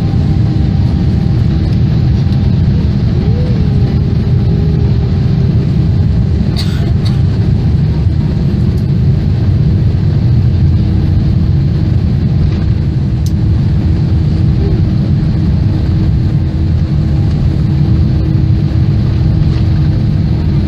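Inside the cabin of a Boeing 787 on its takeoff roll, heard from a seat over the wing: a loud, steady rumble of the jet engines at takeoff power together with the wheels on the runway. A faint steady hum runs underneath, and a couple of light clicks come from the cabin.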